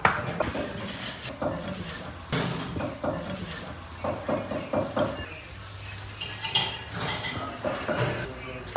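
Hands in plastic gloves mixing a basin of chopped peppers, onion and spice by hand: irregular rustling and knocks against the enamel basin, with a sharper clink about six and a half seconds in.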